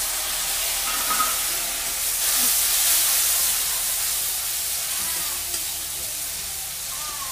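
Spice masala sizzling hard in a hot metal kadai as a spatula stirs it. The sizzle is loudest a few seconds in and eases a little toward the end.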